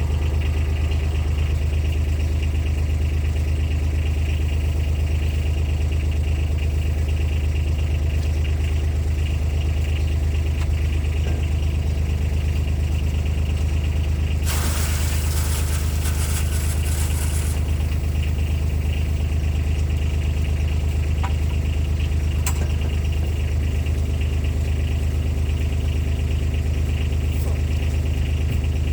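Side-by-side utility vehicle's engine running steadily with a deep, even drone. About halfway through, a rush of noise lasts roughly three seconds.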